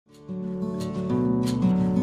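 Background music: a plucked-string tune, likely guitar, with held notes and a regular beat, fading in at the very start.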